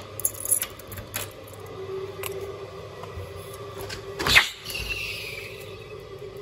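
A few light clicks, then a patio door being opened with a loud knock-and-scrape about four seconds in, followed by a brief falling squeak.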